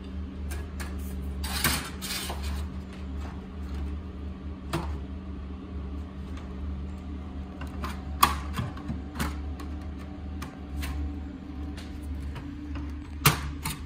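Double seaming pliers worked along a standing seam in coated sheet metal: scattered metallic clicks and clacks as the jaws close and the sheets shift, with a rustling scrape about two seconds in and two sharper knocks, the loudest near the end. A steady low hum lies underneath.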